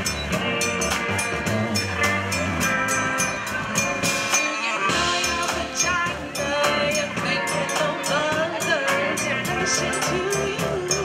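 Live band music with a steady beat, evenly spaced drum and cymbal hits keeping time. From about halfway through, a melody line that slides in pitch comes to the fore.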